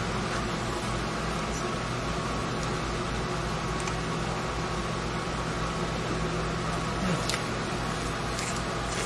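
A steady low machine hum with a faint even hiss, like a small motor running, with a brief squeak and a tick about seven seconds in.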